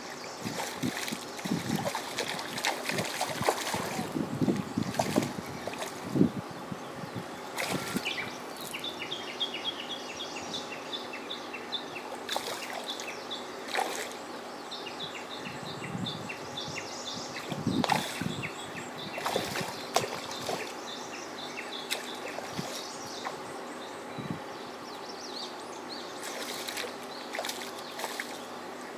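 A hooked black bass splashing and thrashing at the surface of the water as it is played in toward the shore, the splashes heaviest in the first few seconds and again past the middle. A high, rhythmic chirping repeats in the background through the middle.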